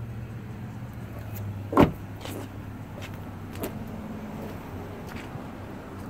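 Handling noise as someone climbs out of a car's back seat: a loud thump about two seconds in, then a few lighter knocks and clicks, over a low hum that weakens after the thump.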